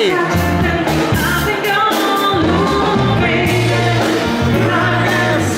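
Music with a singing voice over a bass line.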